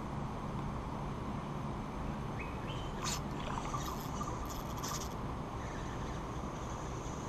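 Rainforest ambience: birds chirping and a steady high insect whine over a constant low rumble of wind and background noise, with a sharp click about three seconds in.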